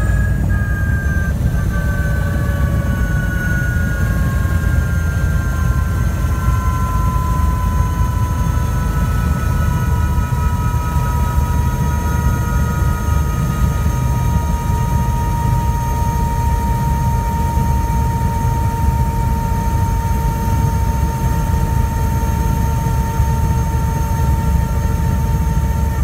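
Airbus AS350 helicopter heard from inside its cabin while sitting on the ground with the rotor turning: a steady low rotor and engine rumble. Over it, the turbine whine slowly drops in pitch through about the first half, then holds steady.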